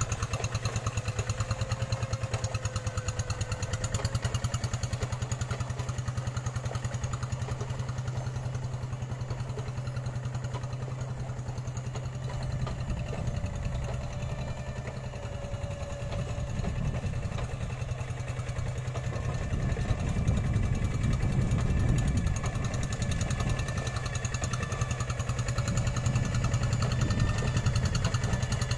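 Two-wheel hand tractor's single-cylinder diesel engine chugging steadily under load while it churns and levels rice-paddy mud, getting louder about two-thirds of the way through.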